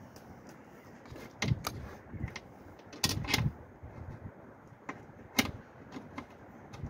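Metal hand tool clinking and knocking against parts in a car's engine bay, with a few sharp clicks scattered through. The busiest stretch comes a little after three seconds, with another sharp knock about five and a half seconds in.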